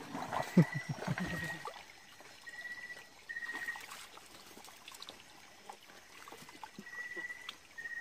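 Shallow stream water trickling and splashing as hands grope among the rocks, with a sharper splash about half a second in and several smaller knocks and splashes after it. A high chirping call sounds in short, even notes several times.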